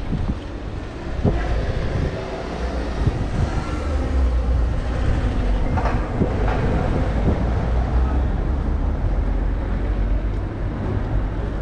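Low, continuous rumble of a passing vehicle in city traffic, with a few short knocks.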